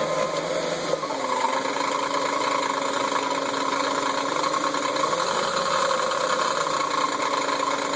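BMW 750iL V12 idling with its ZF 5HP30 automatic transmission in reverse, giving off a steady whine that sets in about a second in as the gear engages. The whine comes only in drive or reverse and vanishes in neutral, a transmission fault whose cause the owner does not know.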